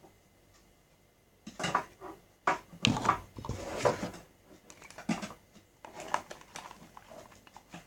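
Slime mixture being stirred in a container, with irregular knocks and scrapes of the stirring utensil against it, starting about a second and a half in.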